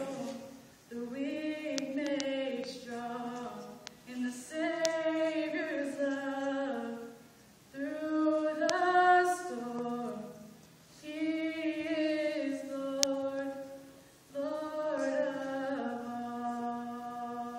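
A woman singing solo and unaccompanied, in held phrases with short breaths between them.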